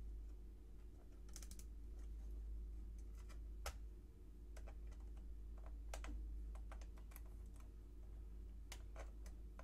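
Small, irregular clicks and taps of a jeweler's screwdriver driving the tiny screws back into the metal front plate of a Kodak Brownie Target Six-20 box camera, over a steady low hum.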